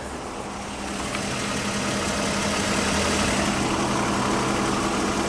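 BMW M54 straight-six idling warm, with a single hydraulic lifter tapping. The metallic chatter of the lifters is almost gone after a camshaft tray swap.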